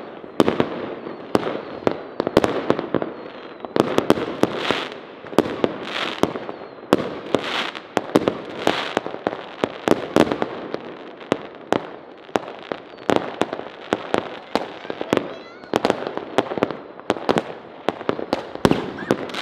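Fireworks going off: a dense, irregular run of sharp bangs from bursting aerial shells, overlapping with crackling between them.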